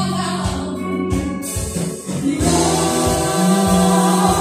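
Live band playing: women singing over electric guitar and drums, with a steady beat. The music swells a little louder about halfway through.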